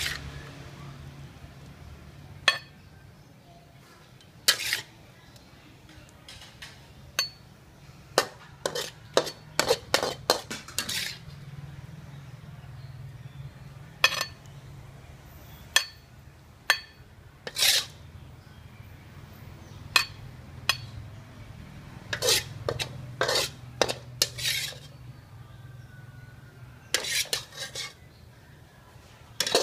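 Long-handled metal wok spatula scraping and clanking against a steel wok while stir-fry is scooped out onto a plate: irregular sharp clinks and scrapes, some in quick clusters, over a low steady hum.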